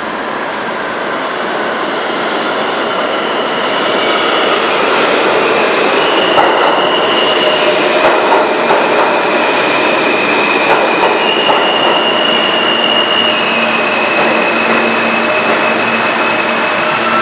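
New York City Subway R160 train pulling into an underground station and braking, its noise growing louder as it comes alongside. High squeals from the wheels and brakes run over the rumble, with a hiss about seven seconds in.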